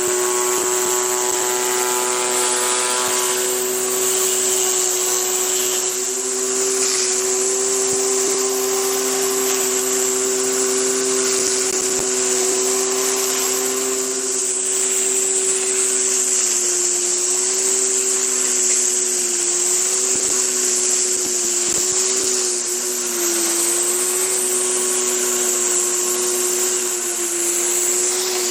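Westinghouse WPX3400 gas pressure washer running steadily: its 212cc four-stroke engine holds a steady note that dips slightly now and then, under a constant high hiss of high-pressure water spray.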